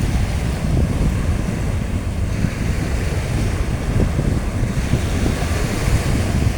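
Sea waves washing onto a beach, with strong wind buffeting the microphone in a steady low rumble.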